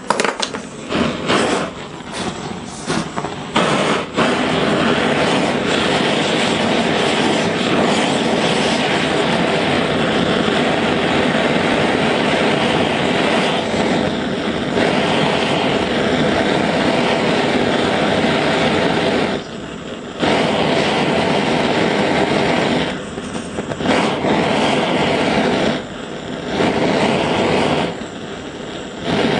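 A large gas blowtorch burner heating a small copper boiler for silver soldering. It catches with a few sputters, then burns with a steady rushing roar, briefly dropping away several times in the second half as the flame is moved off the work.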